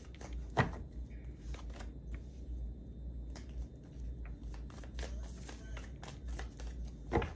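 A tarot deck being shuffled by hand: a run of soft card clicks and riffles, with two louder snaps of the cards, one about half a second in and one near the end.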